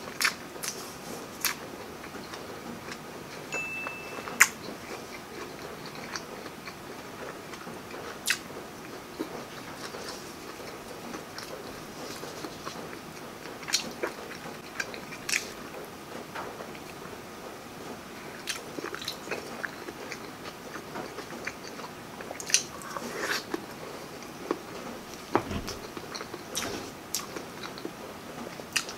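Close-up eating sounds of a person biting and chewing breaded fried fish fillet and rice taken by hand. Irregular sharp crunches and wet mouth clicks come every second or two, the loudest about four seconds in.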